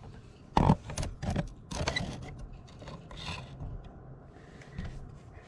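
Handling noise of a GoPro being set in place on its mount: a few sharp clicks and knocks with some rubbing in the first two seconds, a short scrape a little over three seconds in, then only faint background.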